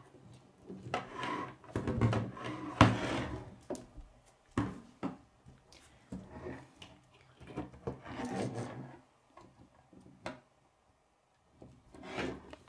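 Plastic K'nex pieces clicking, knocking and rattling as a toy digger model is handled and adjusted on a wooden tabletop, with one sharp click a little under three seconds in and a short quiet pause near the end.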